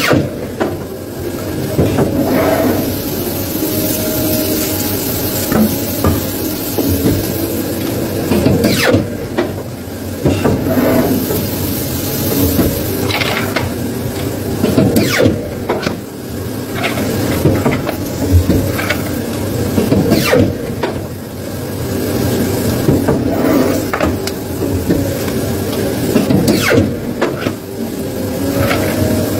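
Polar industrial paper guillotine cutter at work: a steady machine hiss and hum with irregular sharp knocks and thuds as paper stacks are handled against the steel table and cut by the blade.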